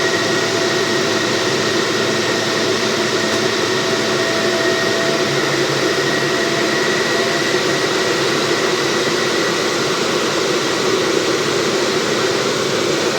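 Sapporo Subway rubber-tyred train running at speed, played back at double speed: a steady loud rush of running noise with a few held whining tones, the highest of them piercing.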